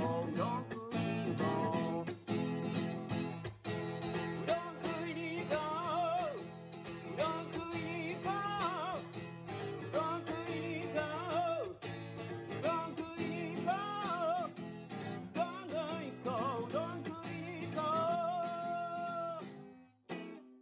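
Acoustic guitar strummed to accompany a man singing a folk-style song. It ends on a long held sung note and a final strum that is left to ring.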